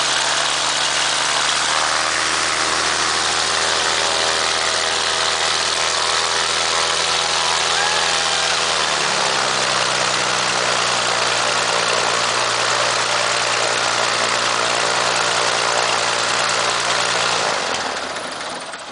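Uncowled air-cooled flat-six piston engine of a Lancair Legacy homebuilt aircraft running loud at low power on its first-ever start, the propeller turning. About nine seconds in its pitch steps up slightly as the engine speeds up. Near the end it is shut down and runs down to a stop.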